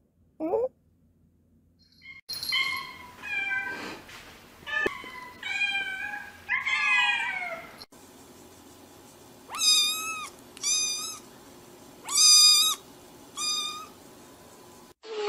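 Cats meowing. First comes a run of several varied meows, then, after a break, four short high-pitched meows about a second apart.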